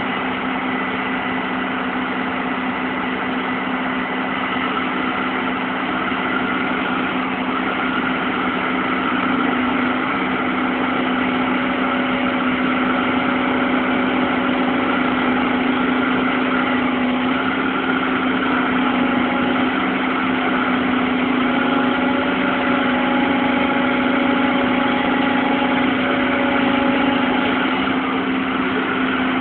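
Bulldozer's diesel engine running at a steady, even note, getting slightly louder about ten seconds in.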